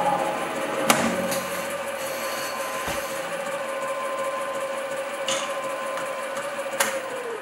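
Axminster SC2 mini lathe running with a steady whine while a parting tool cuts 316 stainless steel, with a few sharp clicks from the cut as the tool digs in. Near the end the whine falls in pitch as the spindle slows.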